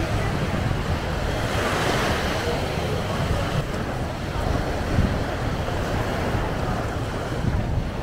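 Small waves washing onto a sandy shore, with wind buffeting the microphone as a low rumble. The wash swells about two seconds in.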